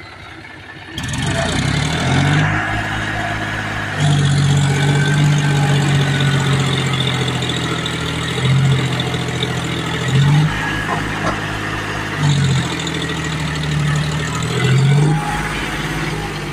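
John Deere 5050 D tractor's diesel engine running under throttle. It comes up about a second in, then holds with its pitch dipping and recovering several times.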